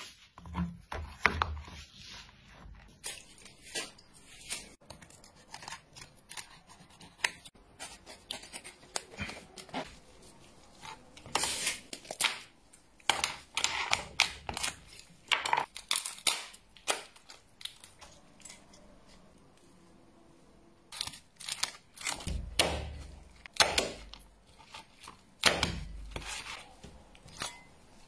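Hard crab shell being cut and cracked open by hand: irregular sharp cracks, snips and crunches, with a quiet pause about two-thirds through and a few duller thumps near the end.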